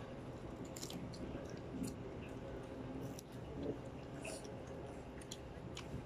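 Mouth noises of a man chewing grilled chicken: scattered small wet clicks and smacks, fairly faint.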